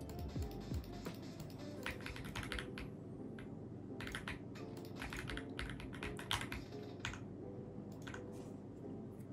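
Typing on an AULA F75 mechanical keyboard: irregular runs of key clicks with short pauses between them, over background music.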